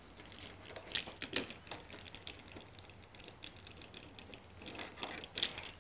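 Screen roller pressing rubber spline into the channel of a metal screen frame over fiberglass screening: a run of light, irregular clicks and small metallic knocks as the wheel is worked along the channel and into the corner.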